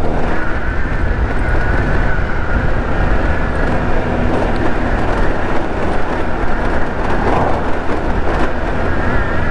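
GY6 four-stroke scooter engine running steadily while riding, with road rumble and a thin steady whine above it.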